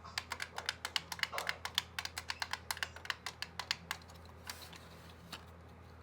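Plastic push-buttons on a Jensen JEP-250 weather radio being pressed one after another in a rapid run of clicks, several a second, thinning to a few scattered clicks after about four seconds.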